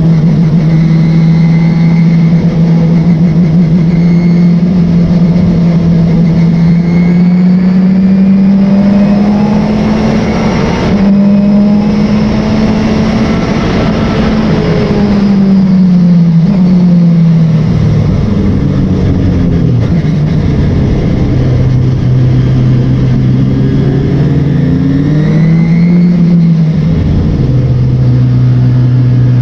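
Race car engine running hard, heard continuously, its note climbing slowly for the first ten seconds or so, dropping about halfway through and holding low, then rising and falling again near the end as the revs change.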